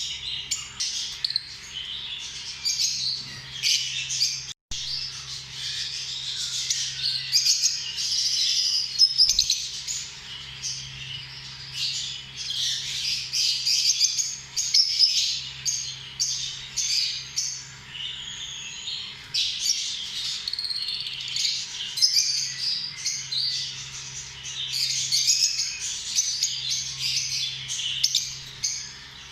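Lovebirds chirping, many short high calls overlapping without a break, with a momentary dropout just under five seconds in.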